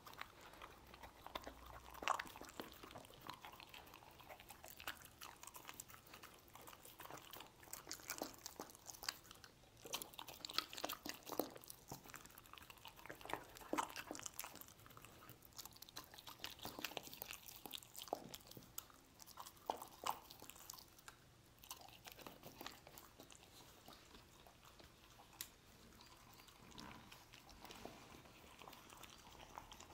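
Dog chewing and biting pieces of stir-fried meat: soft, irregular bouts of quick wet smacks and crunches, the loudest about two seconds in. The dog licks near the end.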